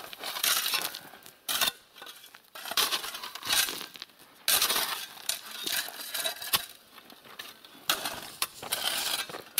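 Shovels scraping and pushing crushed stone across a dirt road, the gravel rattling and grinding under the blades in irregular strokes every second or so.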